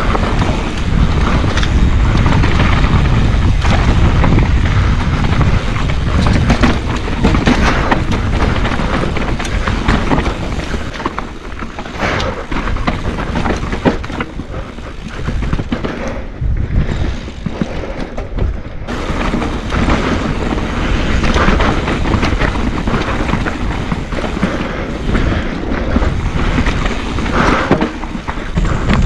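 Mountain bike descending rough dirt singletrack: a loud, rumbling rush of tyre and trail noise with many knocks and rattles from the bike over bumps, easing off for a few seconds around the middle.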